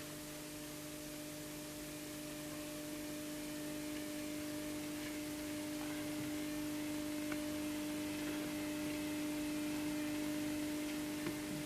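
Faint steady low hum with a light hiss underneath, swelling slightly and easing off near the end, with two faint clicks.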